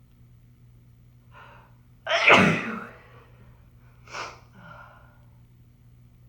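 A woman with a cold sneezing: a brief gasping in-breath about a second in, then one loud, powerful sneeze. A second, shorter and sharper burst follows a couple of seconds later, with a faint breath after it.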